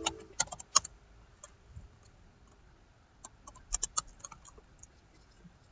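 Computer keyboard keys being typed in two short runs, one in the first second and another about three to four seconds in. A ringing tone fades out at the very start.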